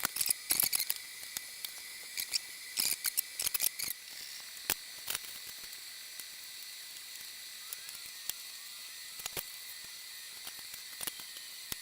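Small sharp clicks and ticks from handling the metal parts of a table-saw tenon jig, many in the first four seconds and then only now and then, over a steady faint hiss.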